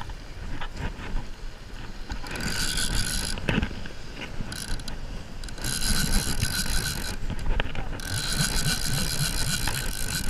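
Conventional revolving-spool fishing reel being cranked in three bursts, its gears whirring, as a hooked fish is reeled in.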